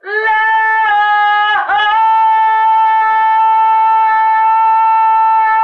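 A wind instrument blown loud: a first note, a brief break with a dip in pitch about a second and a half in, then one long held note that stops abruptly near the end.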